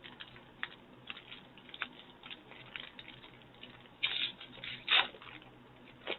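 Plastic candy bag of Twizzlers being handled and torn open: scattered crinkling, with two louder tearing rips about four and five seconds in.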